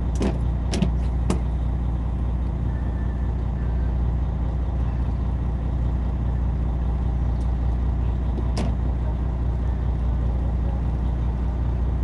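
Fishing boat's engine running steadily with a low hum. A few sharp clicks or knocks come in the first second or so and once more near the end.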